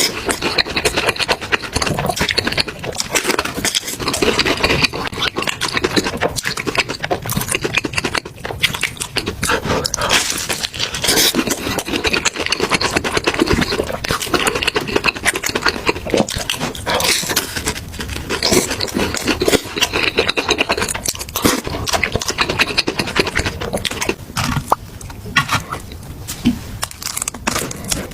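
Close-miked eating sounds: wet chewing and slurping of noodles, a dense run of smacks and clicks that thins out a little near the end.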